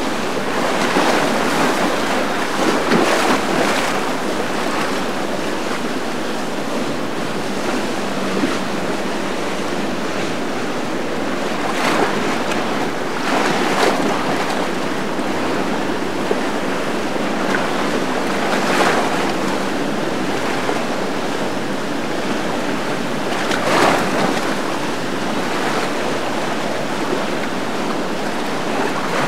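Fast, choppy canal water rushing and splashing, with wind on the microphone; the rush swells briefly now and then.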